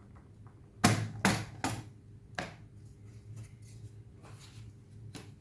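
Sharp plastic clicks and knocks, four loud ones in the first half followed by a few fainter ones, as the laptop's bottom cover is handled and lifted off.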